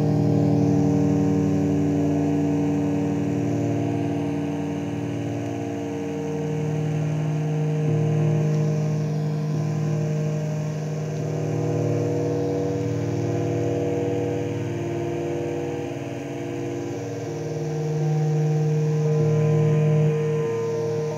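Ciat-Lonbarde Rollz-5 analog synth drone: several oscillators ringing through resonant gong filters and Cocoquantus delays, a thick held chord of steady pitches. Its notes swell, fade and shift every few seconds as the panel's controls are turned, with a sudden change near the end.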